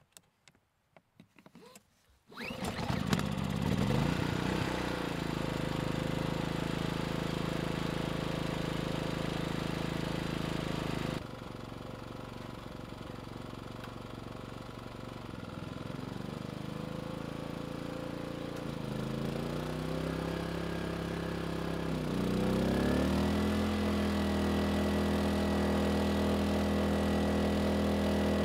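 Erayak 4500P inverter generator's petrol engine starting about two seconds in and running, restarted with no load on. Later its engine speed climbs in three steps as the space heaters are switched back on, settling at a higher steady hum under about 3,000 watts of load.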